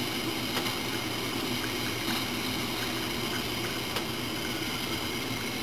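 Steady low hum and soft hiss from hat-steaming equipment, with two faint clicks.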